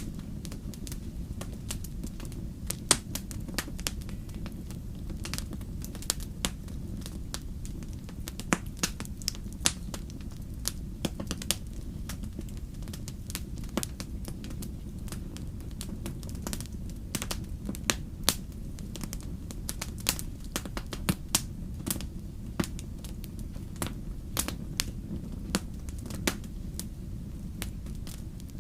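Wood campfire crackling, with frequent irregular sharp pops and snaps over a steady low rumble.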